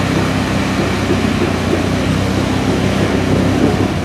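Argo 8x8 amphibious vehicle's engine running steadily under load as it drives through river water, with the wheels churning up a constant splashing rush of spray.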